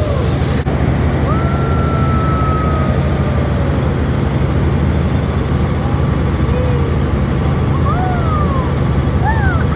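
Helicopter rotor and engine noise heard inside the cabin: a loud, steady drone with a low hum underneath.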